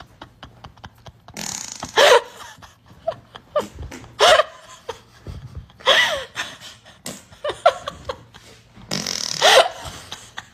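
Loud vocal bursts, about one every two seconds, with quieter breathy sounds between them.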